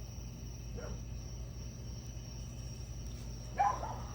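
A dog barking, faintly once about a second in and louder once near the end, over a steady low hum.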